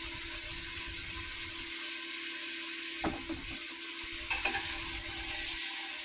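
Chicken pieces frying in hot oil, a steady sizzle over a low steady hum, with a couple of light utensil knocks about three and four seconds in.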